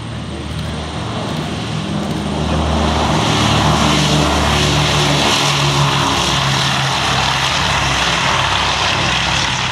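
Propeller-driven piston-engine warbird flying past, its engine drone swelling to a peak about halfway through, then dropping in pitch as it goes by.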